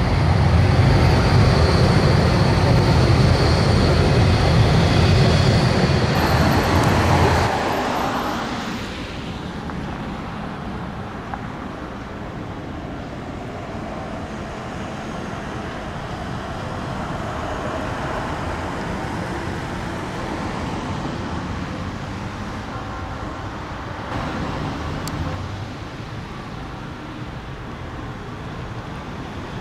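Bombardier Cobra low-floor tram running past close by on street track: a loud low rumble with a steady high whine over it. About seven seconds in, it gives way to quieter, steady city traffic noise with a tram in the distance.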